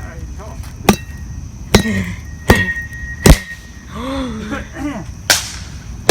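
Repeated hard strikes of a metal tool pounding into a pit in the ground, about six blows at a steady pace with a short gap midway, each one giving a brief metallic ring.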